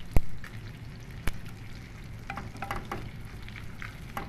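A butter-and-flour roux sizzling gently in a stone-coated pan while a silicone spatula stirs and scrapes it. Two sharp knocks come about a second apart just after the start, the first the loudest sound, and a few light clicks follow later.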